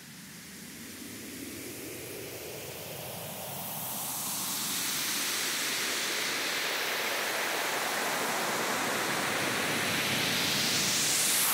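White-noise riser of an electronic dance track, a hiss that swells steadily louder and brighter as the build-up before the beat.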